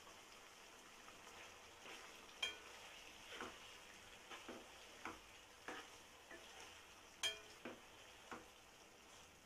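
Metal spoon stirring chicken liver masala in a nonstick kadai: a series of short scraping strokes, with two sharp ringing clinks of the spoon against the pan, over a faint sizzle.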